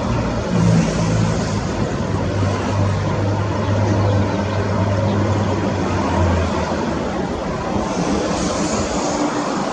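Steady engine drone over outdoor background noise; the low droning note stops about six and a half seconds in.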